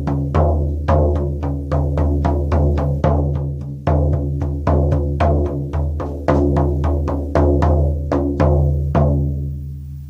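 Shaman frame drum beaten in a steady, loose rhythm of about two to three strokes a second, each stroke over a deep ringing boom. The beating stops about nine seconds in and the drum rings out and fades.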